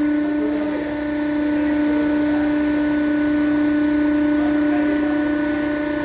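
A carton machine's motor running with a steady, even hum, which cuts off abruptly right at the end.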